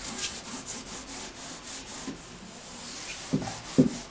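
A handheld whiteboard eraser rubbing across a whiteboard, wiping off marker writing. Two short soft knocks come near the end.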